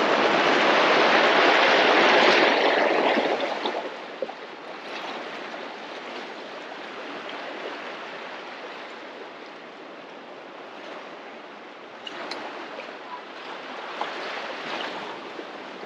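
Sea water washing against the pier below, a rushing swell that is loud for the first few seconds, dies down, and surges again near the end.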